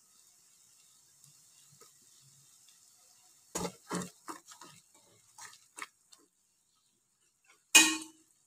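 Wooden spatula scraping and knocking against a non-stick frying pan as thick spinach paste is stirred: a cluster of short strokes about three and a half seconds in, then one louder, ringing knock on the pan near the end.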